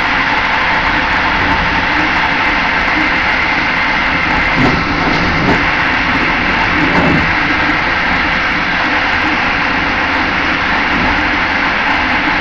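Passenger train running at speed, a steady rolling rumble and rush of wheels on the rails heard from inside the rear carriage, swelling slightly a couple of times about halfway through.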